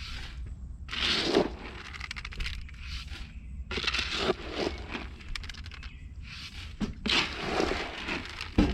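Dry pig feed poured from a bucket into a feeder, in three rushes of rattling and scraping, then a sharp knock near the end.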